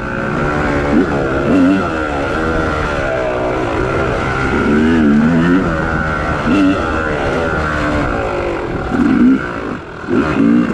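Yamaha YZ250 two-stroke dirt bike engine under way, revving up and dropping back several times as the throttle is worked. There is a short lull near the end before it picks up again.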